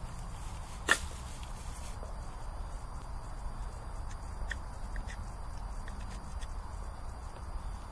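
A single sharp knock about a second in, then a few faint clicks of a knife shaving the edge of a wooden wedge to re-angle it, over a low steady rumble.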